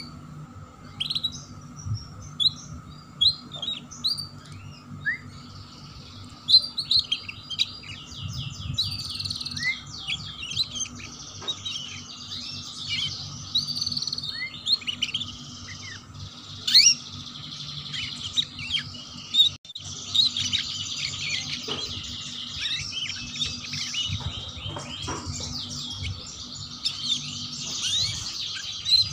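Domestic canary singing in the fast, chattering twitter that canary keepers call "ngeriwik": scattered chirps at first, then from about six seconds in long runs of rapid repeated trilled notes.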